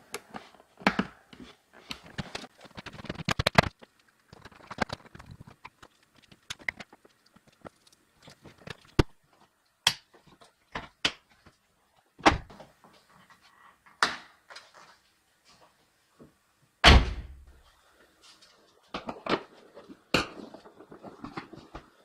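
Scattered clicks, snaps and knocks of plastic interior trim and seat parts being handled and fitted in a car, with one heavy thud about two-thirds of the way through.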